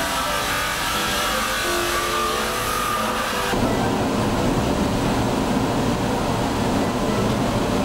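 Handheld rotary tool with a small disc whining against silver, its pitch shifting as it works. About three and a half seconds in the sound cuts to a steadier, slightly louder mechanical rumble and hiss.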